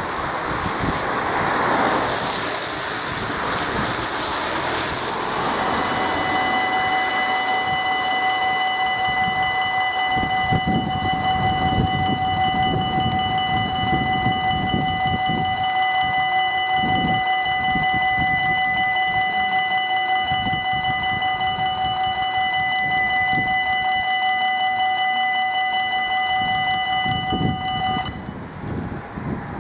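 Car tyres hissing over a wet road, then about five seconds in a level crossing's electronic warning signal starts: a steady ringing of several tones together. It sounds while the red lights flash and the barriers come down, and it cuts off abruptly near the end once the barriers are down.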